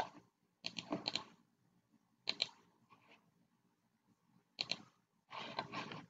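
A computer mouse clicking a few times at irregular intervals, with a couple of brief rustling noises in between.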